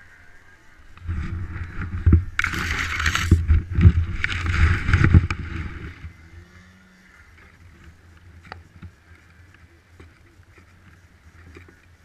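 Loud rubbing, scraping and knocking from the camera being handled and moved for several seconds, with two harsh hissing bursts, then only a few small clicks and taps.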